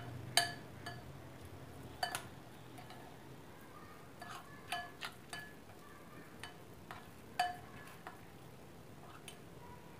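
A spoon clinking against a glass bowl while stirring thick besan (gram-flour) batter. The taps come irregularly, each ringing briefly, and are loudest about half a second in, at two seconds and at about seven and a half seconds.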